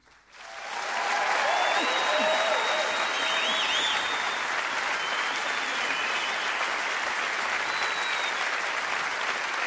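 A large concert audience breaks into applause as the song ends, building within the first second and holding steady. Cheering voices and a few whistles rise above it in the first few seconds.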